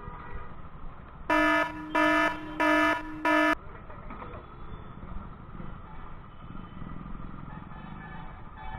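Scooter horn honked four short times in quick succession over steady road and wind noise.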